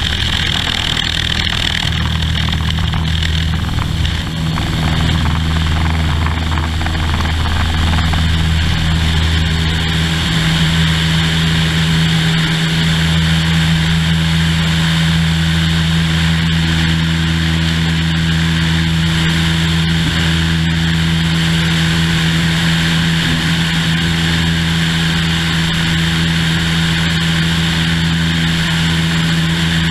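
Single-engine Cessna's piston engine and propeller running at takeoff power through the grass-strip takeoff roll and climb-out: a loud, steady drone with wind rush over the fuselage. It is a little rougher in the first few seconds on the ground, then holds an even pitch once airborne.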